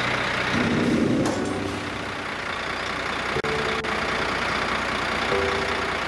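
Lorry engine running steadily, with faint music notes held over it.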